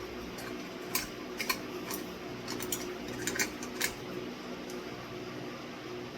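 Glass tulip light shades clinking and tapping against the metal fitters of a ceiling-fan light kit as they are fitted, a quick run of sharp clinks between about one and four seconds in, over a steady low hum.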